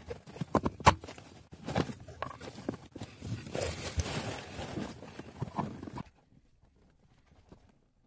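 Irregular knocks, clicks and scrapes of metal parts and tools being worked at a car's clutch master cylinder and pedal box. The sound stops abruptly about six seconds in.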